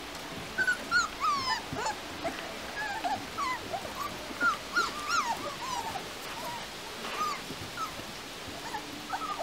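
Beauceron puppies whimpering and yelping: many short, high squeaks, most of them falling in pitch, from several pups at once.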